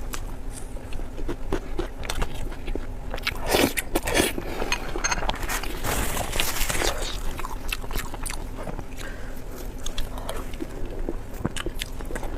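Close-miked eating: a person biting and chewing with crisp crunches and wet mouth clicks, busiest from about three and a half to seven seconds in.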